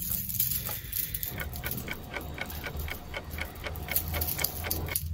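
A metal jewelry clasp being worked open, clicking in a rapid, even run of about five small clicks a second for a few seconds, starting just over a second in.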